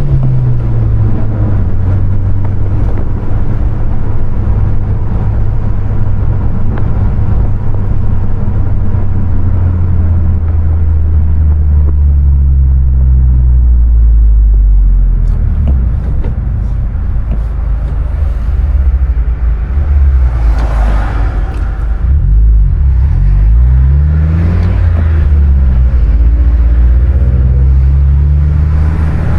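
2020 Honda Civic Si's 1.5-litre turbocharged four-cylinder engine running while driving. Its note holds steady for long stretches and rises and falls with the gear changes, with several quick rises and drops in pitch a little over twenty seconds in.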